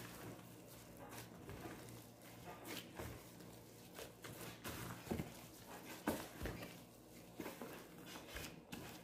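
Gloved hands kneading and folding soft, sticky, oiled yeast dough in a plastic basin: faint, irregular squelches and soft slaps.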